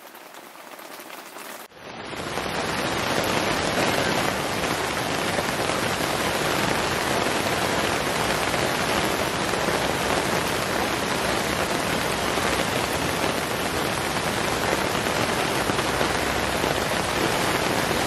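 Heavy rain pouring down steadily onto the ground and into standing puddles. It is fainter for the first two seconds, then turns loud and even.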